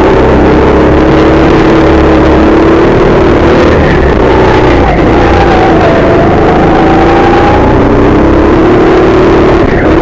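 Go-kart engine running loud at speed, heard from the driver's seat, its pitch sagging about halfway through and climbing again as the kart slows for a corner and accelerates out.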